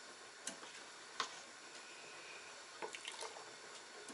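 A ladle scooping heated tomato marinade from a steel pot and pouring it: faint liquid sounds with a few light clicks.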